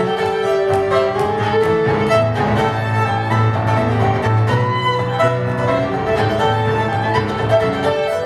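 Fiddle and piano playing an instrumental tune together: the bowed fiddle over piano chords and a low bass line, live on stage.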